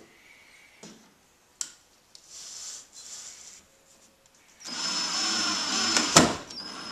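Cordless drill driving a wood screw into the wooden top of a cabinet: the motor runs with a steady whine for about a second and a half, ending in a sharp click.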